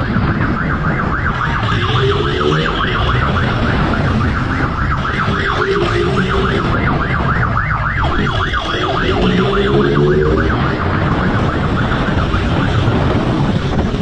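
A siren in a fast, continuous yelp, over a motorcycle engine revving up in three rising pulls and a steady low rumble of wind and road.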